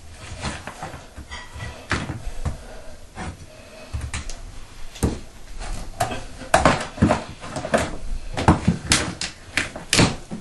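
Water-damaged, moisture-rotted bathroom floor being pried and broken up in pieces by hand: irregular knocks, cracks and scrapes, more frequent in the second half.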